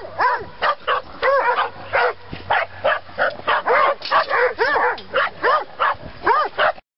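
Dogs barking and yipping over and over, about four short barks a second, each rising and falling in pitch. The barking cuts off suddenly near the end.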